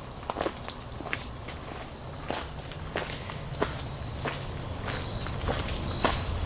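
Footsteps crunching along a forest trail at walking pace, roughly one to two steps a second, over a steady high-pitched drone of insects.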